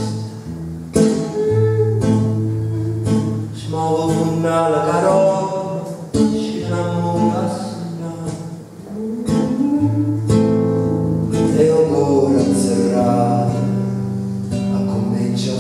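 Live acoustic guitar strummed in steady chords, with a voice singing a melody over it through a microphone.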